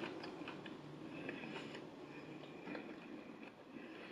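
Quiet chewing and wet mouth sounds of someone eating fried chicken fingers dipped in sauce, with scattered faint clicks.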